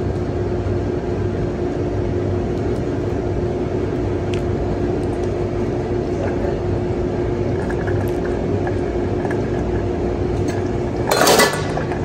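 Hot water poured in a steady stream from a stainless steel pitcher into a paper coffee filter in a brewer's basket, splashing as it rinses the paper. A short loud clatter near the end.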